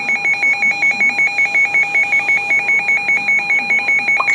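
Midland WR-300 weather radio's alert alarm: a shrill tone beeping rapidly, about seven beeps a second, the warning that an emergency alert (here a severe thunderstorm warning) is coming in.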